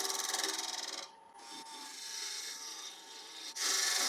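Turning tool cutting the outside of a spinning ash bowl blank on a wood lathe: a steady scraping hiss that stops about a second in, leaving a much quieter stretch, then a short cut again near the end.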